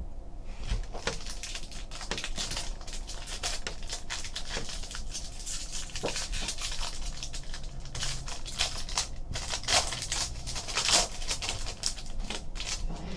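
Foil wrapper of a 2014 Topps Triple Threads baseball card pack crinkling as it is torn and peeled open by hand. The crackling runs on in quick clusters and is loudest near the end.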